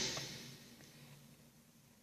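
The tail of a toy dragon's electronic sound effect, a loud rushing noise, fading out over about the first half second, followed by near silence.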